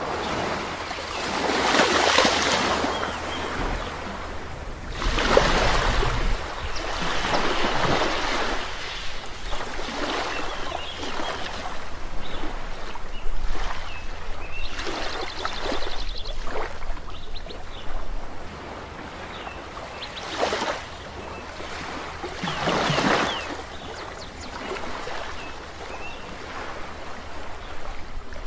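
Sea waves breaking and washing up on a shore, surging and fading every few seconds, with faint short bird calls between the surges.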